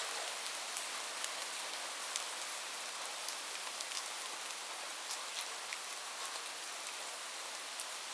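Steady rain falling, a constant hiss with many sharp, close drop ticks scattered through it.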